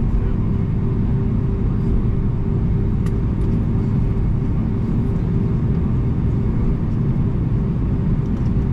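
Airbus A319 cabin noise from inside the cabin during taxi: the jet engines at idle make a steady drone with a constant low hum and a higher steady tone.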